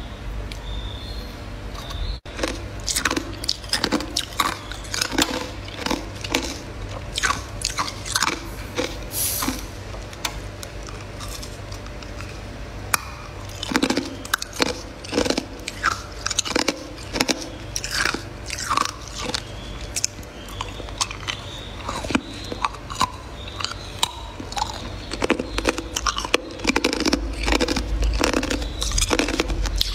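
Someone biting and chewing chunks of freezer frost ice: irregular crunches all through, over a steady low hum.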